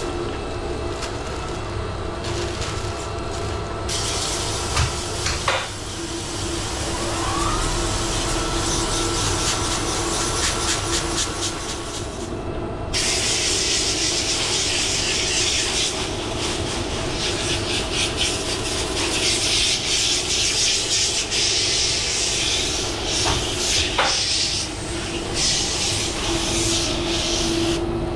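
Supco Port-A-Blaster portable pressure washer at work on a mini-split indoor coil: the pump hums steadily and the water spray hisses against the coil fins. The spray gets louder from about halfway through.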